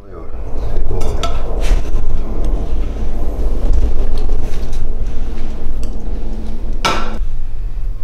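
Kitchen clatter of a frying pan and utensils: a few sharp knocks early on and one loud clatter about seven seconds in, over a steady low rumble.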